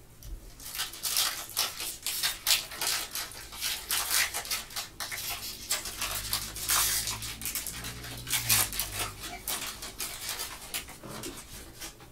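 Foil wrapper of a Panini Illusions trading-card pack crinkling in a fast, irregular run of crackles as gloved hands tear it open and handle it.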